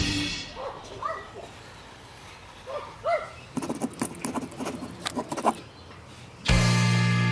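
Two groups of short, high, arched animal calls, followed by a patter of scattered clicks; music with steady held notes starts near the end.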